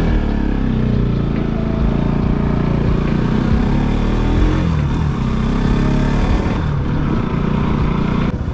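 A motor vehicle engine running close by, its pitch rising and falling as it is revved.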